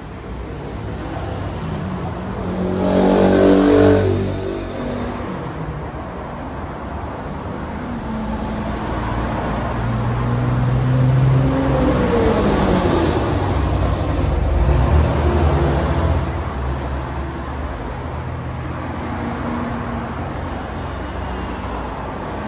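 Road traffic: motor vehicles driving past close by, one after another, over a steady rumble. The loudest pass comes about three to four seconds in. A longer pass follows around the middle, its engine pitch dropping as it goes by.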